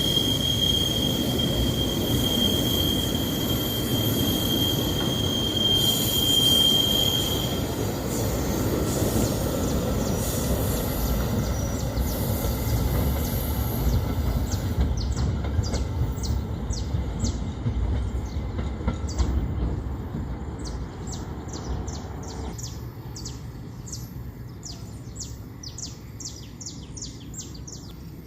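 Train running on the rails, its wheels squealing with a steady high tone for the first seven seconds or so over a low rumble. The rumble then fades away as the train recedes, and birds chirp over it in the second half.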